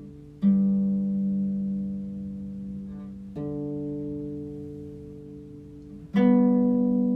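Harp music: slow plucked chords, a new one struck about every three seconds and left to ring and fade.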